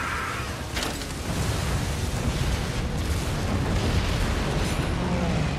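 Film battle sound effects of explosions aboard a battleship: a continuous heavy rumble of blasts and fire, with a sharp crack about a second in.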